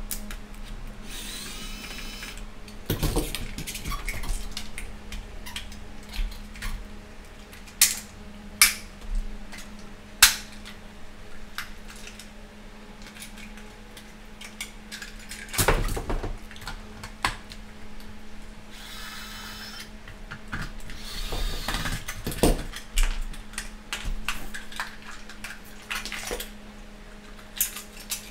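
Screwdriver and hands working on a vintage clamp meter's plastic case and meter movement: scattered clicks, taps and knocks with a few short scrapes as screws are turned and parts are lifted out. A faint steady hum runs underneath.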